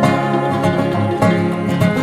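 Background music: a bluegrass-style tune with plucked strings.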